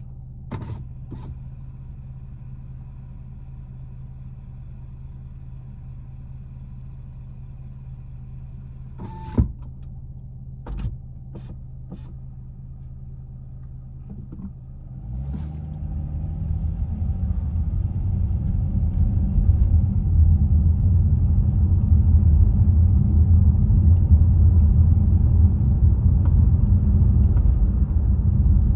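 Car engine idling at a standstill, with a few sharp clicks, the loudest about a third of the way in. About halfway through, the car pulls away: the engine note rises and the engine and road noise grow much louder, then hold steady.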